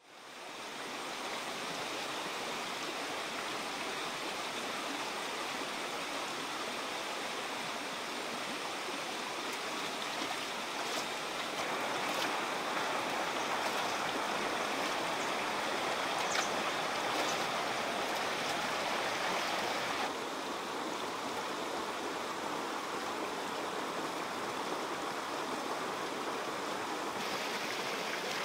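Shallow rocky stream rushing over stones, a steady hiss of running water that fades in at the start and changes in strength a few times.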